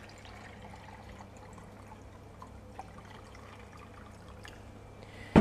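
Water poured from a small glass jug into a plastic measuring jug already holding vinegar: a faint, steady trickle into liquid, mixing a pickling brine. A sharp knock sounds near the end.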